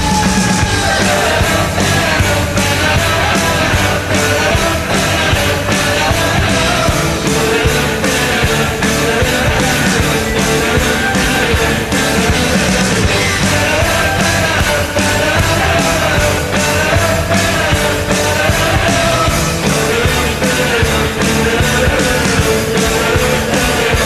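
Rock song with singing over a steady beat: a hockey team's goal song.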